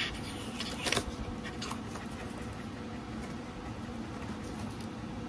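Light handling noises as items are unpacked: a sharp click at the start and another about a second in, then a few faint ticks, over a steady low hum.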